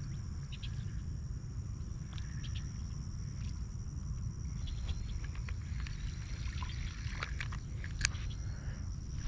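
Outdoor ambience: a steady high insect drone, likely crickets, under a constant low rumble. Scattered faint clicks, with a sharper one about eight seconds in.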